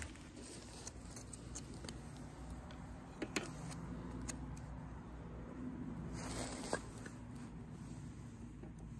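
Scattered small clicks, knocks and scrapes of firewood and camp gear being handled while a campfire is set up, with two sharper clacks about three and a half and just under seven seconds in. A steady low hum runs underneath.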